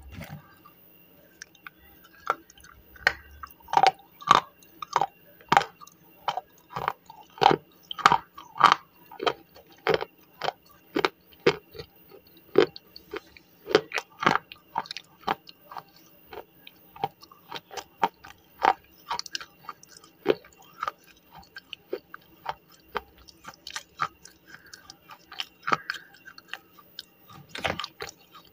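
Close-miked chewing of slate pencil: a long run of sharp, crisp crunches, about one to two a second, as the pencil is bitten and ground between the teeth.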